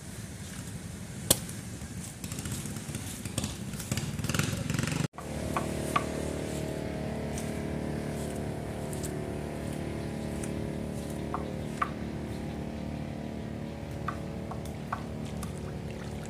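Motorboat engine running steadily at an even pitch, starting after a cut about five seconds in. Before it comes a rougher rumbling noise with one sharp click just over a second in.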